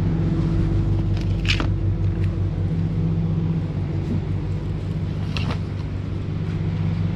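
Shopping cart rolling over a tiled supermarket floor, making a steady low rumble over the hum of refrigerated display cases. Two short clicks come through, about a second and a half in and again about five and a half seconds in.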